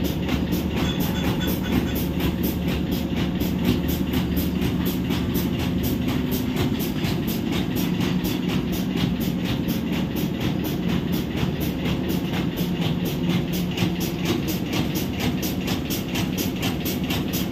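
Hitachi EX5500-5 mining excavator's diesel engines running at a steady drone, with a fast, even pulse over it.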